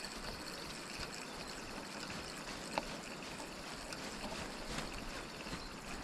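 River water running steadily over a shallow, stony bed, with a single short click a little before the halfway point.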